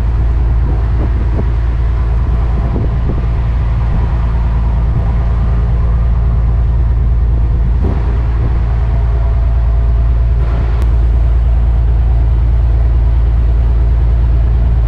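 Wooden passenger ferry's diesel engine running steadily under way, a loud low drone that holds even throughout.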